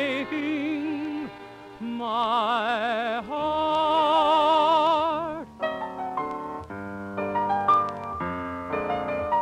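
A tenor sings the closing line of a sentimental ballad with heavy vibrato, holding long notes. About five and a half seconds in, the voice stops and the instrumental accompaniment carries on alone for a short interlude.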